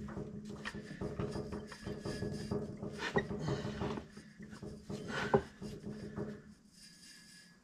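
Aluminum four-speed manual transmission being worked loose from the bell housing by hand, scraping and clunking, with a sharp knock about five seconds in. A steady hum runs underneath and stops shortly before the end.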